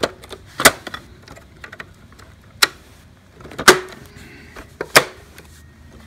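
Sharp plastic clicks and knocks, four loud ones a second or more apart with a few lighter ticks between, as the plastic skid plate is fitted back onto the underside of a Hoover WindTunnel upright vacuum.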